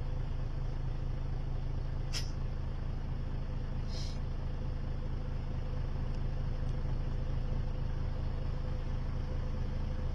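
A vehicle engine idling, heard from inside the cab as a steady low hum, with a short click about two seconds in and a brief hiss about four seconds in.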